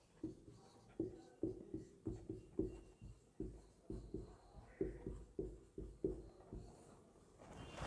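Marker pen writing on a whiteboard: a run of short, quick strokes as words are written out, stopping near the end.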